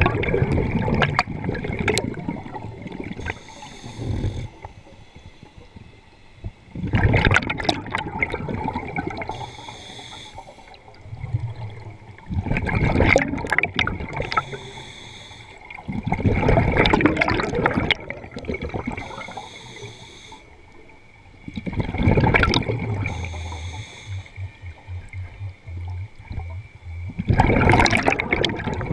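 Scuba diver breathing through a regulator underwater: the exhaled air leaves as loud gushes of bubbles, one to two seconds long and about every five seconds, with a quieter hiss between breaths.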